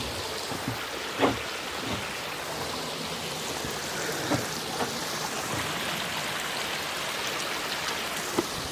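Stream water running steadily, with a few light knocks scattered through, the clearest about a second in.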